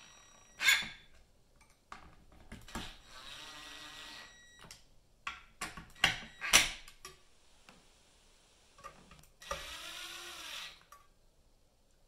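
Ridgid 18V cordless drill running in two short bursts as it drives screws into a ceiling fan's mounting plate, its motor pitch rising and falling. Between the bursts come several sharp clicks and knocks, the loudest sounds, about a second in and around six seconds in.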